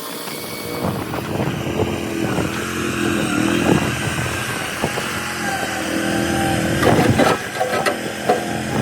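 Mini skid steer loader engine running, its pitch shifting up and down, with a few knocks or clanks, the loudest about seven seconds in.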